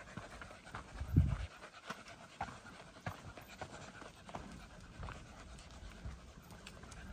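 A dog panting steadily as it walks on a leash, along with light footsteps on a rocky dirt trail; a low thump sounds about a second in.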